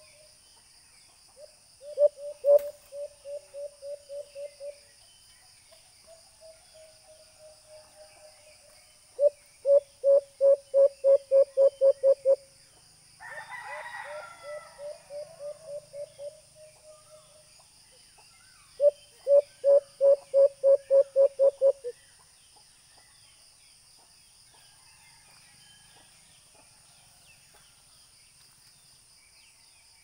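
Recorded call of a white-eared brown dove played through a small Bluetooth speaker as a hunting lure: runs of about ten short, low hooting notes in quick succession, three loud runs starting about 2, 9 and 19 seconds in, with fainter notes between them. A single harsher, higher call cuts in about 13 seconds in.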